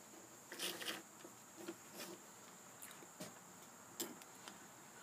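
Faint handling noises on a desk: a phone being shifted and handled, with scattered rustles and light knocks, the loudest cluster about a second in and a sharp tap about four seconds in. A faint steady high-pitched whine sits underneath.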